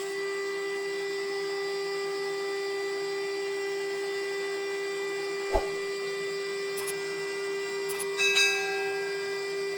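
Steady mechanical hum of sawmill machinery running, with a single sharp knock about halfway through and a brief clatter of knocks near the end.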